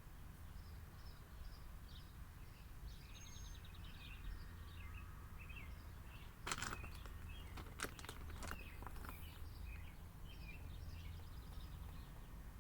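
Small birds chirping over a faint, steady low outdoor rumble, with a few sharp clicks a little past the middle.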